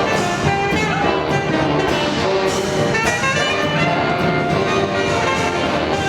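Background music with brass instruments, jazz-like.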